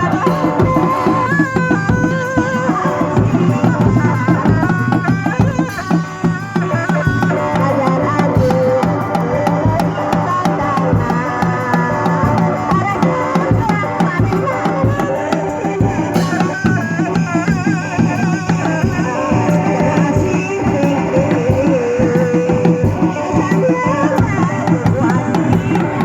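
Kuda lumping accompaniment music: hand drums beating a busy, driving rhythm under a wavering, ornamented melody line, playing on without a break.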